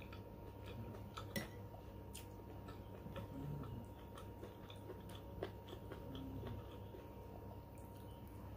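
Metal spoon clinking and scraping against a ceramic soup bowl in scattered light clicks while soup is scooped up, with quiet chewing between mouthfuls.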